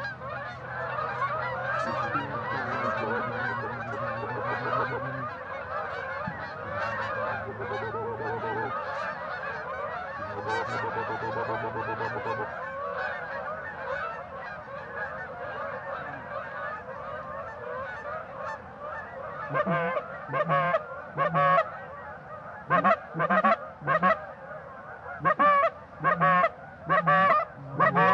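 A flock of geese honking in a dense, continuous chorus. About two-thirds of the way through, louder single honks start coming in quick succession close by.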